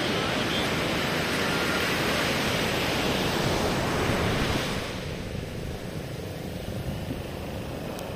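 Sea surf breaking and washing up a sandy shore, a steady rushing noise, with wind buffeting the microphone. The sound turns quieter and duller about five seconds in.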